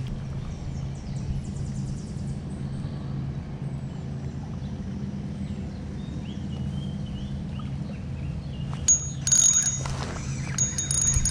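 A steady low motor hum runs throughout, with faint bird chirps in the middle. Near the end, a fishing reel is cranked hard as a fish is reeled in, giving a high metallic ringing whir that starts twice, with some clatter.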